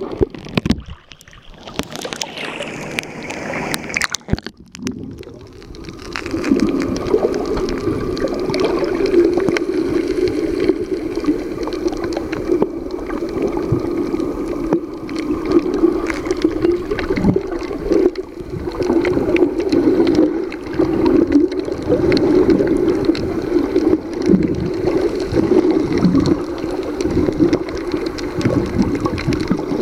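Muffled underwater sound picked up by a submerged camera: a steady low rushing hum with gurgling. It is quieter and thinner for the first few seconds, then settles into a steady level.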